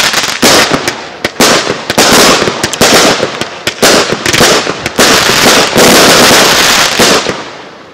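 Heron Cake 11 consumer firework cake firing, with shot after shot in quick succession, each launch followed by a burst in the air. It fades away near the end.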